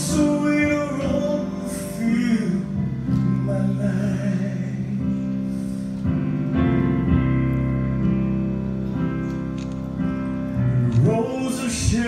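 A man singing a slow gospel song in phrases over keyboard accompaniment that holds long, steady chords.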